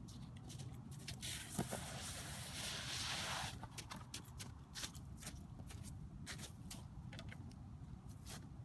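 Irregular crunches and clicks on snowy ice, with a short scraping rush about three seconds in, over a low steady rumble.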